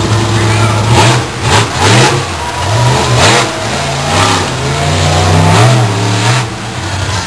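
Monster truck engine revving hard, its pitch rising and falling again and again as the truck climbs over and crushes a row of cars. A few short noisy swells come through about one, two, three and six and a half seconds in.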